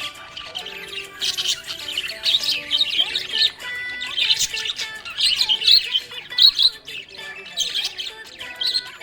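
Budgerigars chirping and chattering in quick, busy bursts with occasional squawks, over background music.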